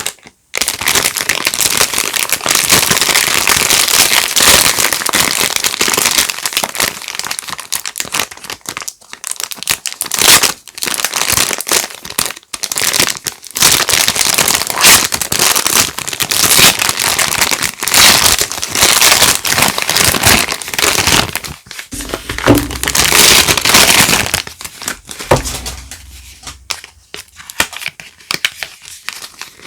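Soap packaging being unwrapped by hand: wrapping crinkling and rustling in long loud stretches with short pauses, and a few duller handling knocks a little after two-thirds of the way through.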